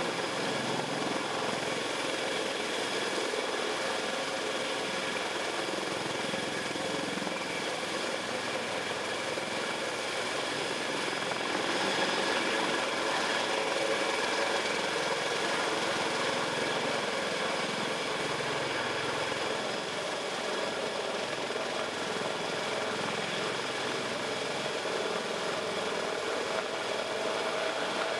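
Sikorsky CH-53K King Stallion heavy-lift helicopter hovering low, its three turboshaft engines and big rotor making a steady whine of several high tones over a broad rush. It grows a little louder about twelve seconds in.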